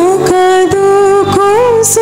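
Devotional hymn sung by a single voice, holding long notes that slide up and down between pitches.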